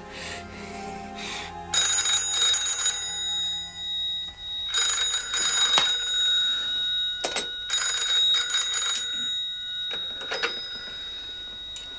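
Telephone bell ringing in three bursts about three seconds apart: an incoming call waiting to be answered.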